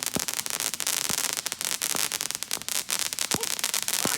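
Consumer fireworks crackling: a dense, rapid run of sharp pops, with a few short falling whistle-like tones mixed in.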